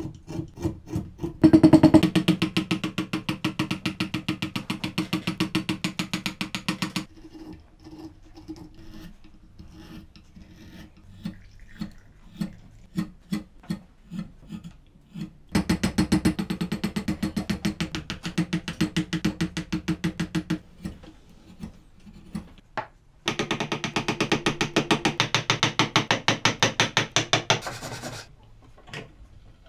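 Small wooden parts being shaped with hand tools: three long bursts of fast, even back-and-forth rasping strokes, several a second, with stretches of lighter scraping and scattered taps between them. The last burst is a wooden piece being rubbed over a sanding block.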